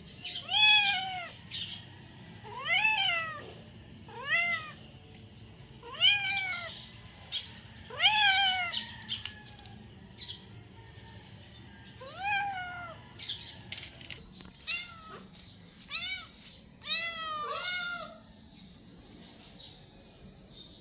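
Hungry stray cat meowing to beg for food: about nine meows, one every couple of seconds, each rising then falling in pitch, with the last two close together near the end.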